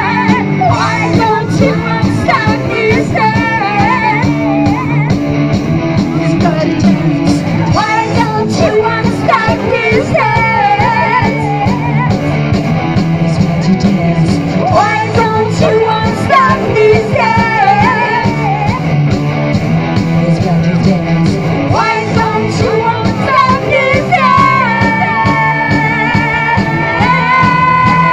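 Live rock band playing through PA speakers: electric guitars and drums under singing, with long held notes near the end.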